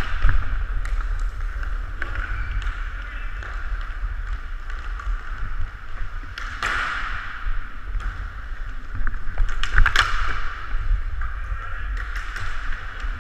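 Hockey play heard from a helmet-mounted camera: a steady skating rumble and wind buffeting the microphone, with two sharp clacks of stick or puck, about six and a half and ten seconds in.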